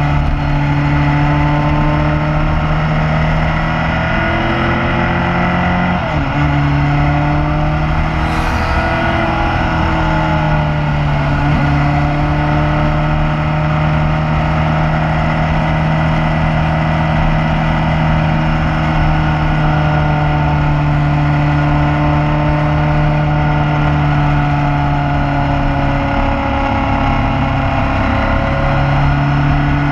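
Motorcycle engine running steadily under way, heard from on board the moving bike, its pitch shifting a few times as it changes speed, around 4 to 6 seconds in, near 10 seconds and again near the end.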